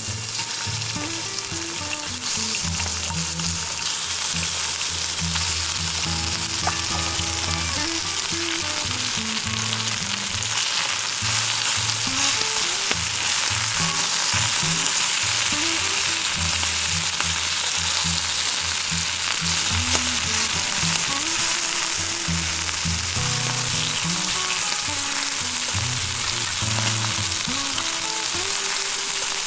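Food sizzling steadily in a hot pan over a campfire, a continuous frying hiss that gets a little louder about four seconds in. Soft background music plays underneath.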